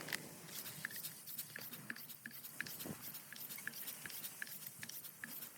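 Faint, irregular small clicks and rubbing of hands working a bicycle tire and tube onto the wheel rim.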